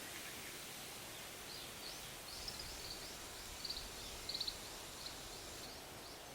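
Faint forest ambience: a steady hiss of wind with a small bird singing a run of short, high, repeated chirps through the middle.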